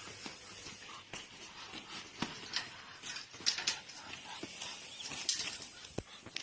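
Irregular taps and scuffles, about a dozen sharp ones scattered through, from a gamecock moving about during physical training.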